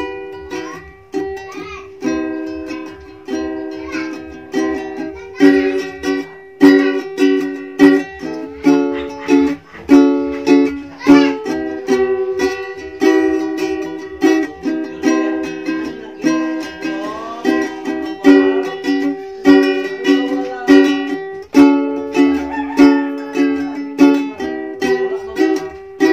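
Ukulele strummed in chords in a steady rhythm, each strum ringing out and fading before the next, with the chord changing every few seconds.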